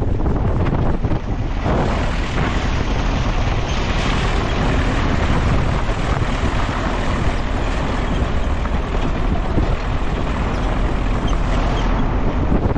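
A van driving, with a loud, steady rumble of engine and road noise and wind buffeting the microphone.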